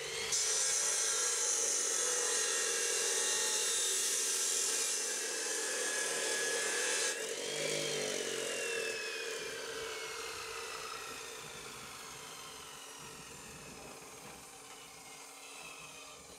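Angle grinder spinning up and grinding steel bar for about seven seconds, then switched off, its whine falling steadily as the disc winds down.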